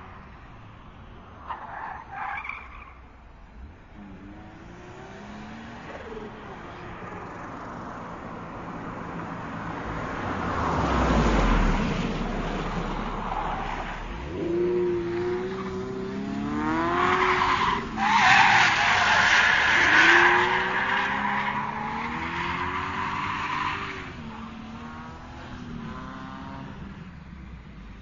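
Racing car driven hard: the engine revs rise and fall repeatedly while the tyres squeal and skid in several bursts. The longest and loudest squeal comes in the second half.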